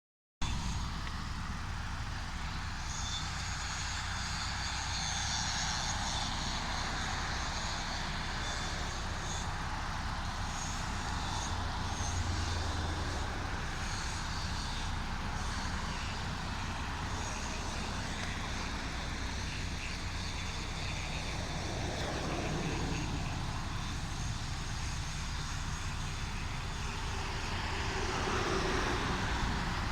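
Steady outdoor rumble of distant motor traffic, unbroken, with a faint high hiss above it.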